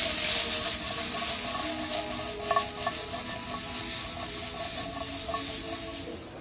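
Green beans sizzling in hot oil in a nonstick frying pan on an electric stove: a steady frying hiss that eases off near the end.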